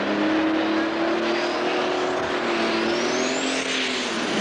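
Super stock pulling tractor's turbocharged diesel engine running flat out under load as it pulls down the track. A high whine climbs steadily in pitch over about two seconds and then holds, and the engine note weakens near the end as the tractor bogs down.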